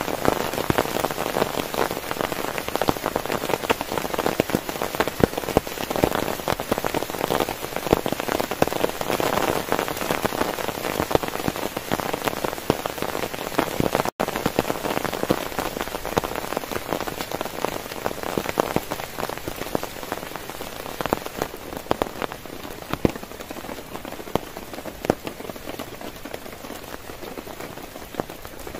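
Heavy rain falling steadily, a dense patter of individual drops. It cuts out for an instant about halfway through and grows a little softer over the second half.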